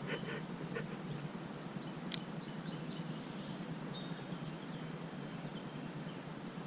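Steady outdoor background noise with faint short bird chirps, a thin steady high insect-like whine, and a few faint clicks near the start and about two seconds in.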